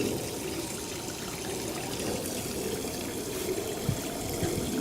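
Water running in a steady stream, let out of a well's pressure tank to bleed the pressure down toward the pump switch's 37 psi cut-in point.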